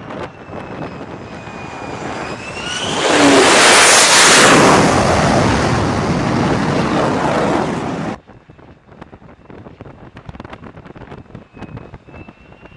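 F-35C fighter jet on approach to a carrier deck: its engine whine rises, then a loud jet roar for about five seconds as it passes close by. The roar cuts off suddenly, and the faint whine of the next approaching jet comes up near the end.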